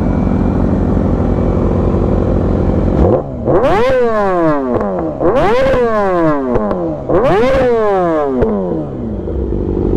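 Inline-four supersport motorcycle engine idling, then revved sharply three times, each rev climbing quickly and falling back to idle.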